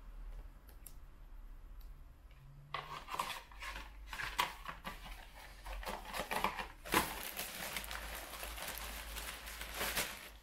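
Clear plastic parts bag crinkling and rustling as it is handled and opened, with small clicks and taps of packaging, starting about three seconds in and becoming a dense continuous crinkle for the last few seconds.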